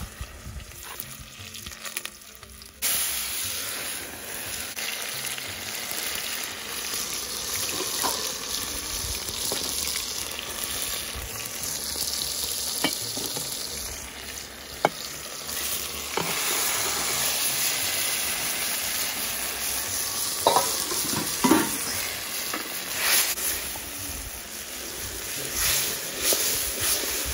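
Chopped tomatoes, onions and green peppers sizzling in hot oil in an aluminium pot over a wood fire, starting about three seconds in after a quieter opening. They are stirred with a wooden spoon, with a few knocks against the pot.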